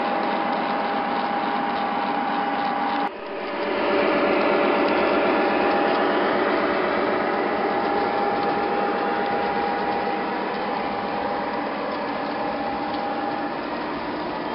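O gauge model trains running on the layout: a steady mechanical whir and rattle of locomotive motors, gears and wheels on the track, with a thin steady whine through it. The sound dips briefly about three seconds in, then comes back louder.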